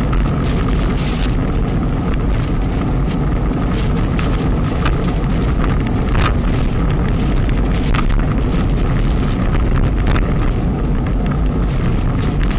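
Heavy wind rushing and buffeting over an action camera's microphone while riding at speed, with a few sharp clicks scattered through it.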